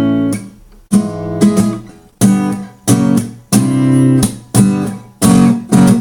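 Acoustic guitar strumming the closing chord progression of the chorus, the walk up through C, G and F sharp to B minor. It plays about nine quick strummed chords, each one damped shortly after it is struck.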